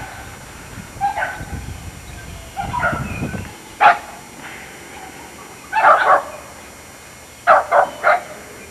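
A dog barking in short, separate barks, with a quick run of three near the end.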